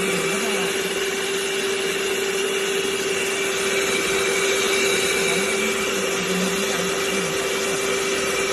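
Electric stand mixer running at a steady speed, its whisk beating a frothy white mixture in a stainless steel bowl: an even motor whine over a constant whirring hiss.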